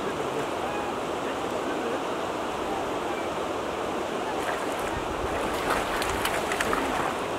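Steady rushing noise of waves on the water and wind, with a few light clicks in the second half.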